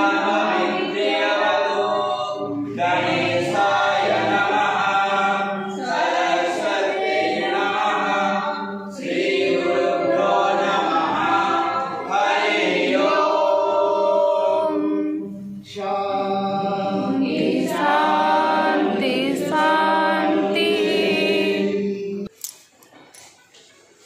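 A group of people singing a prayer together in phrases of about three seconds, over a steady low held note. The singing stops suddenly near the end.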